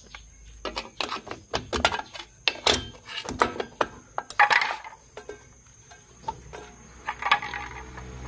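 Metal clicks and clinks of pliers against the brake shoes and spring of a Toyota Kijang rear drum brake as the lower return spring is unhooked: many sharp taps, with a short scraping rasp about four and a half seconds in.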